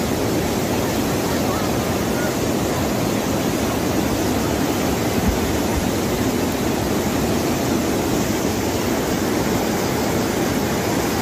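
A river in flood, its muddy water rushing past in a steady, even roar.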